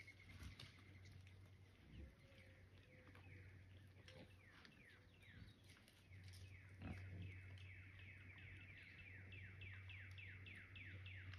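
Faint animal chirping: a long run of short, falling chirps, about two to three a second, starting a couple of seconds in, over scattered soft clicks.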